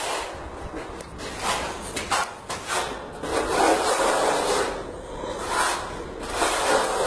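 Hand trowel scraping across a wall as it spreads and smooths a wet finishing plaster, in a series of sweeping strokes of uneven length, the longest about three seconds in.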